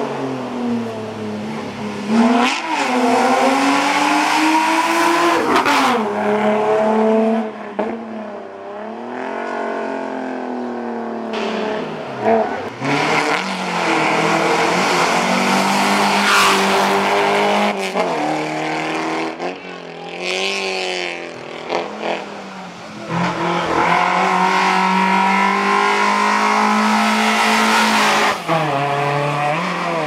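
Small hatchback rally cars at full throttle, engines revving hard up through the gears and lifting off between corners, the pitch climbing and dropping back many times as they pass.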